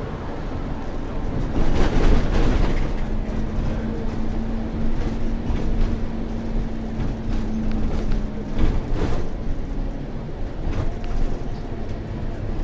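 Inside a moving Scania K230UB single-deck bus: engine and road noise make a steady low rumble, with a steady whine for about six seconds starting about three seconds in, and a few short knocks and rattles.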